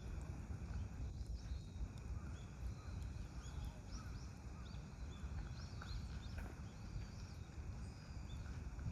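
Wild birds giving many short, high chirps and calls, scattered throughout, over a steady low rumble.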